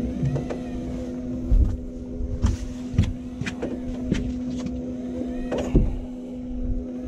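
Electric fishing reel's motor running with a steady hum, winding in line, with a few sharp knocks and taps from gear being handled on the boat.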